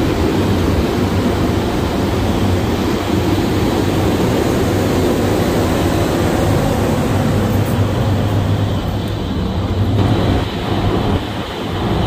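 Large rooftop axial ventilation fans (Rosenberg) running: a loud, steady rush of air with a constant low hum.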